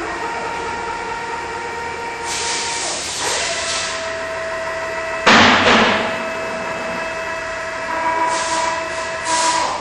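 Rottler F90Y CNC machining center machining a CAT 3500 engine block's firedeck: a steady machine whine that drops in pitch about three seconds in, with short hissy surges. A sudden loud burst of noise a little past five seconds lasts under a second.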